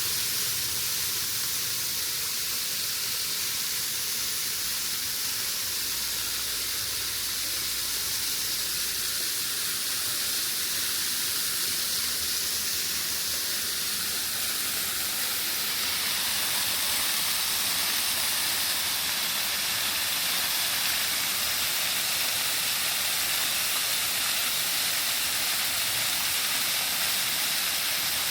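Waterfall pouring, a steady rush of falling water with a strong hiss, growing slightly louder about halfway through.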